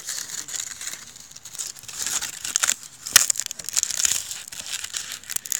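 Campfire burning with colour-flame powder, crackling and hissing with many sharp pops; the loudest pop comes about three seconds in. The fire is dying down to embers.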